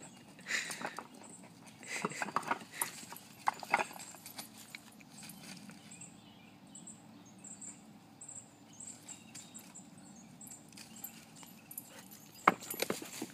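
A dog sniffing hard in short bursts, tracking a chipmunk's scent. The sniffing comes in clusters near the start and again near the end, with a quieter stretch between.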